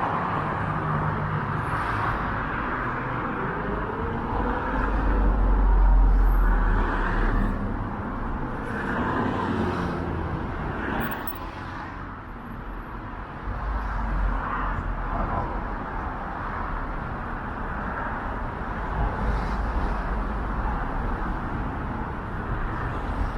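City street traffic: cars passing on the road, each pass swelling and fading in a low rumble. The loudest pass is about six seconds in.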